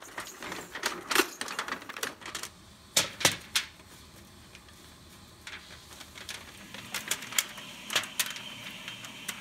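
Irregular sharp clicks and snaps from hand work with thin stainless steel heat-treating foil, with the loudest pair about three seconds in and another cluster near the end.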